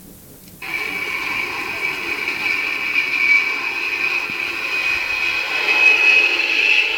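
Recorded Avro Vulcan jet howl played from the small speaker and sound chip inside a scale model, the recording edited with added distortion and compression. It cuts in abruptly about half a second in as a loud, steady high-pitched howl over engine noise, slowly rising in pitch.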